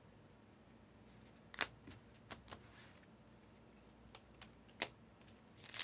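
Trading cards being handled by hand: a few short, sharp clicks and taps as a card in a plastic top loader and a stack of pulled cards are handled and flipped through, against quiet room tone. A rustle begins right at the end.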